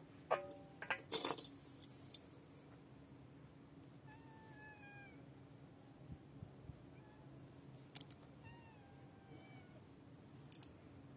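A cat meows twice, each a single falling call, a few seconds apart. Near the start there is a quick cluster of sharp clicks and a clink, with a few more single clicks later, from crisp flatbread being broken into a ceramic bowl and a metal spoon knocking against it.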